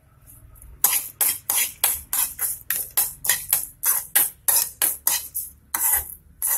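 A spoon scraping round a kadai, stirring fenugreek seeds as they roast in coconut oil. It makes quick, even scrapes, about four a second, starting about a second in.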